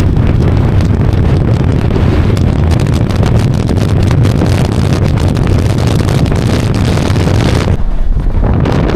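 Loud wind buffeting the microphone, a continuous rumbling rush with no engine tone. The hiss in it eases briefly about eight seconds in.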